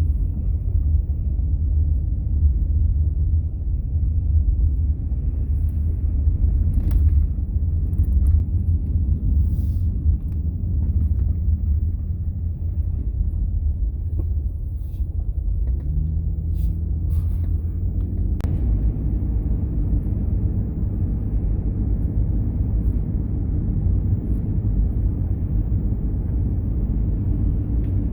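Steady low rumble of a vehicle driving on the road, heard from inside, with a few faint ticks.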